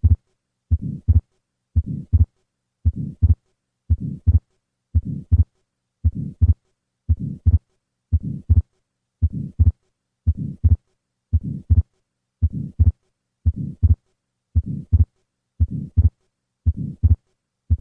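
Heart sounds of an atrial septal defect, about one beat a second. Each beat is a first heart sound running into a soft systolic flow murmur across the pulmonic valve, then a widely split second heart sound: aortic closure, then a noticeably later pulmonic closure, the fixed split caused by prolonged right ventricular ejection.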